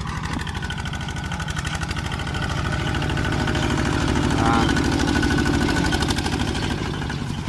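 Tractor engine running steadily under load, pulling a disc plough through the soil, with an even pulse. It grows louder toward the middle as the tractor comes closest, then eases off.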